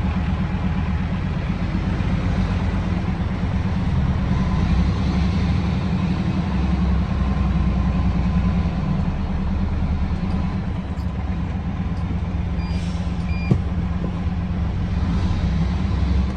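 Heavy diesel engine running steadily under load while the vehicle reverses, with a reversing alarm giving a few short, high beeps near the end.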